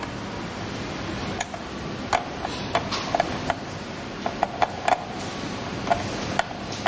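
Irregular light clicks and taps, some with a brief ring, from a hand tool and small metal parts being worked while the wiring is fixed to the traffic signal light's terminal, over a steady hiss.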